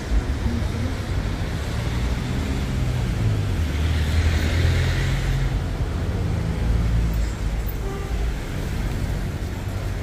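Street traffic: motor vehicles running with a steady low rumble, growing louder about four to five seconds in as one passes close.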